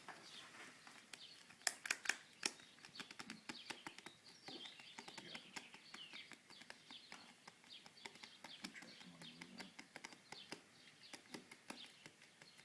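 Faint bird chirping, many short chirps throughout, with a quick cluster of sharp clicks or taps about two seconds in.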